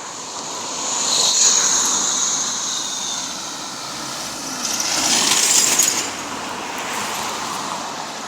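Road traffic passing: two vehicles go by, the first swelling about a second in and the second, louder, about five seconds in, each rising and fading away.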